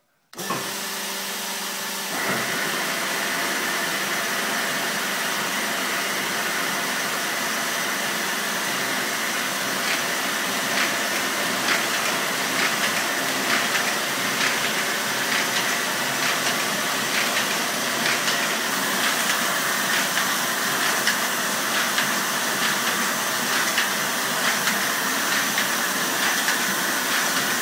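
MBO K69 combination paper folding machine starting up at the press of its start button, then running steadily with its pile feeder. Its sound starts abruptly just after the button press and steps up louder about two seconds in, with a steady noisy rush and, from about ten seconds in, rapid light clicking as sheets feed through the folds.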